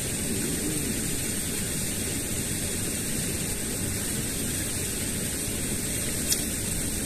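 Steady outdoor rushing noise, even and unbroken, with a thin steady high hiss above it and one faint click near the end.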